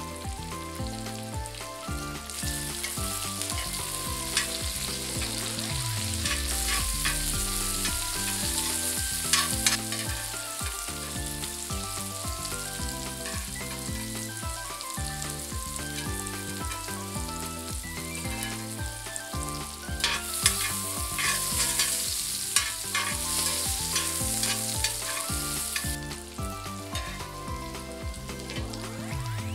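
Garlic cloves, button mushrooms and asparagus sizzling in hot oil in a skillet, with sharp clicks of metal tongs against the pan as the pieces are turned. The sizzle swells about two seconds in and dies down shortly before the end, over soft background music.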